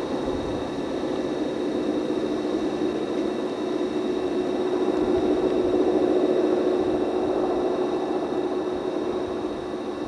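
Distant EMD GP38 diesel locomotives working a long hopper train upgrade: a steady engine drone that swells toward the middle and eases off near the end. The SD50s behind them are barely heard, and there is a hiss of old VHS tape over it all.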